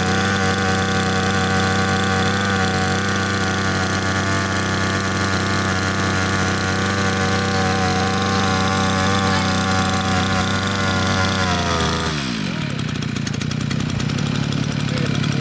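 Echo 260 brush cutter's two-stroke engine held at full throttle through a homemade exhaust built from a pressure-washer accumulator bulb with baffles inside; it runs at steady high revs for about twelve seconds, then the throttle is released and it drops back to idle.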